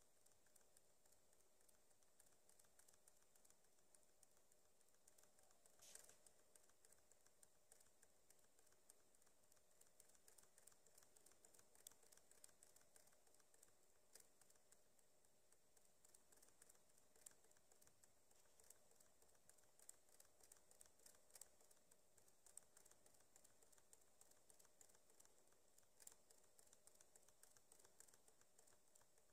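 Near silence: faint room tone with many small irregular clicks, one slightly louder about six seconds in.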